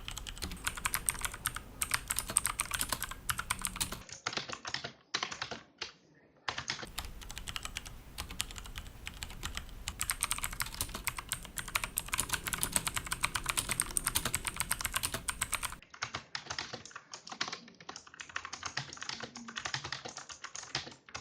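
AULA Wings of Liberty Plus mechanical keyboard being typed on quickly: a dense run of clicky keystrokes from its AULA blue switches, which have a rubber dome over each switch. The typing stops briefly about five to six seconds in.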